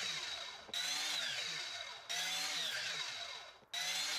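Jefferson sliding mitre saw's motor and blade winding down after cuts through softwood, a whine that falls in pitch and fades. It repeats in quick succession, each run starting suddenly.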